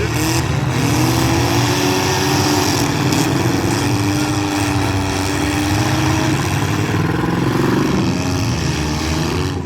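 Demolition derby street stock cars' engines running and revving, the pitch rising and falling throughout as the remaining cars go back at it.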